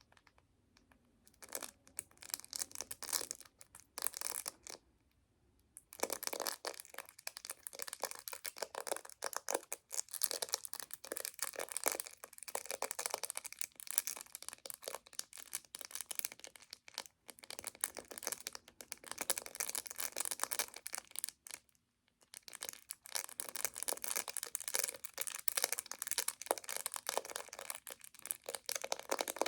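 Close-up crinkling and crackling of a chocolate wrapper being handled, in long dense stretches with a short pause about five seconds in and another just past the twenty-second mark.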